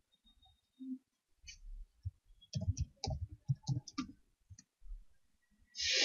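Computer keyboard being typed on: a quick run of key clicks and thuds. Near the end there is a brief, louder rush of noise.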